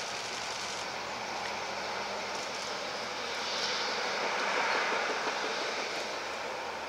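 Train of new Meitetsu 2200-series electric cars, towed unpowered by a diesel locomotive, rolling past: a steady rush of wheels on rail that swells a little about four to five seconds in.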